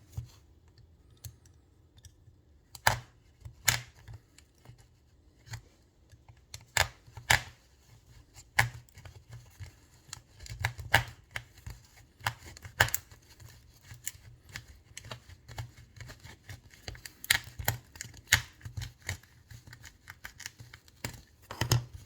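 The plastic housing of a used water filter cartridge being cut open: a long run of irregular sharp snips, cracks and clicks, some much louder than others, with short pauses between them.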